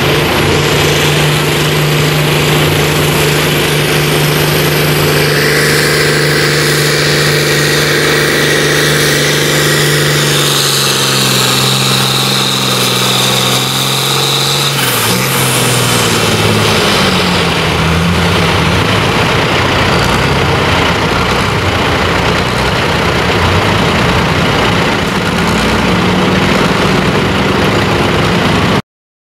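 John Deere 4440 diesel tractor engine at full throttle, pulling a weight-transfer sled. The pitch holds steady, then drops from about ten seconds in and falls further around fifteen seconds as the engine lugs down under the sled. A high whine rides over it for a few seconds in the middle, and the sound cuts off abruptly near the end.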